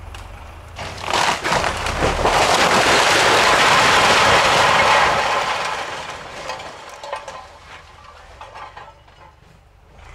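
A tiled-roof brick farmhouse collapsing as it is toppled: a long crash of snapping roof rafters, falling clay tiles and masonry begins about a second in and is loudest for several seconds. It then dies away into scattered cracks and falling debris.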